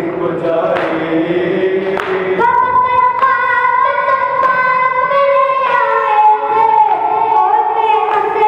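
A boy's voice singing a noha, a Shia mourning lament, into a microphone. Lower singing at the start gives way, about two seconds in, to long high held notes that step down twice.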